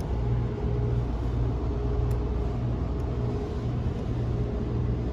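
Steady low mechanical hum with a faint higher tone running through it, from running machinery.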